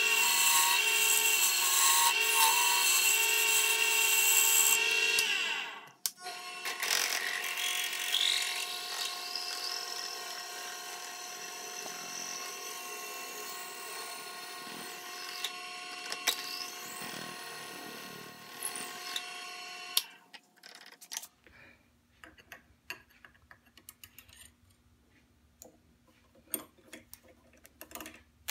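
Wood lathe running with a turning tool cutting a spinning maple handle blank. After a short break the lathe runs more quietly while a drill bit held in the tailstock chuck bores into the end of the handle, with whines that rise and fall in pitch. For the last several seconds only faint clicks and taps.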